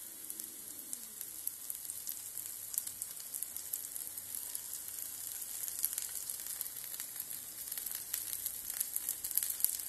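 Oil sizzling around semolina appam batter frying in an appam pan, a steady hiss scattered with small crackles, just after oil was added at the sides of each ball.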